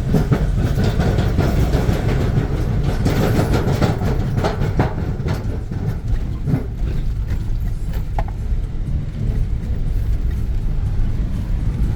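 Steady low mechanical rumble with irregular knocks and rattles.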